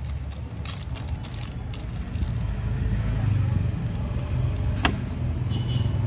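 Low rumble of road traffic that grows louder partway through, with light metallic clicks and rattles of Zippo lighters being handled, and one sharp click about five seconds in.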